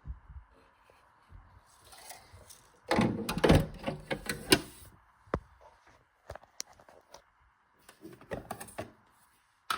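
Irregular knocks, clicks and clatter of hard objects being handled, in a dense cluster about three seconds in, scattered single clicks after, and another short burst near the end.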